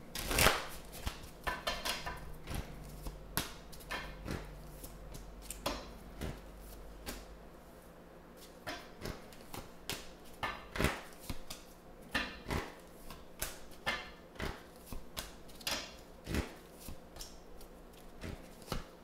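Deck of tarot cards being shuffled right at the start, then dealt one by one onto a tabletop: irregular short clicks and slaps of cards landing and sliding against each other.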